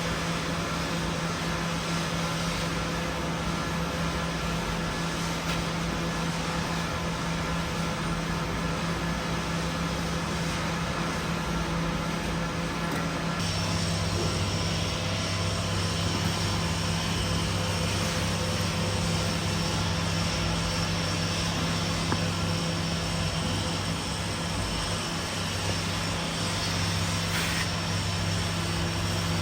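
Steady machine running with a constant hum; about halfway through a second machine comes on, adding a lower hum and a high steady whine.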